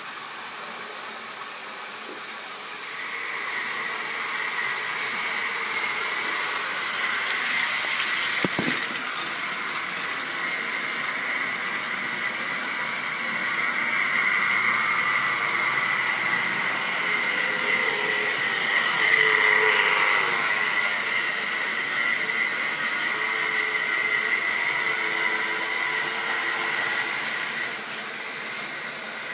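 Model railway train running round the layout: the steady whine of the locomotive's small electric motor and its wheels on the track, growing louder about three seconds in and dropping back near the end, with a single sharp click about eight seconds in.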